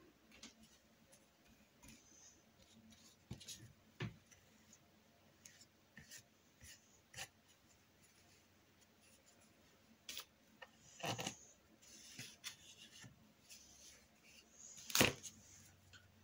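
Faint, scattered taps, clicks and short scrapes of acrylic painting materials being handled and worked, with the loudest scrape near the end.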